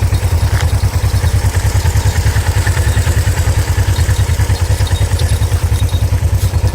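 Hyosung-Suzuki GSX250E motorcycle's air-cooled parallel-twin engine idling with a steady, even pulsing beat.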